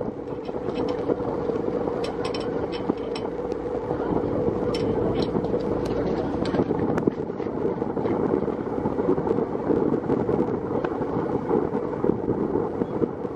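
Sightseeing boat's engine running with a steady drone and an even hum, with wind buffeting the microphone.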